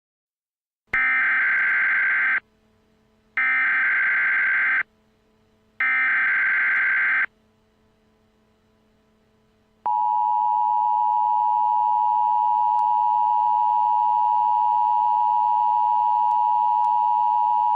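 Emergency Alert System (SAME) header: three identical bursts of shrill digital data screech, each about a second and a half long with a second's gap between them, then, about ten seconds in, the steady two-tone EAS attention signal. Together they announce an incoming emergency alert, here an emergency action termination.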